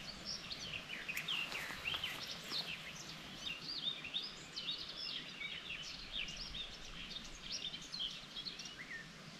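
Several small birds singing, with many quick, overlapping chirps and short rising and falling notes, over a faint steady background hiss.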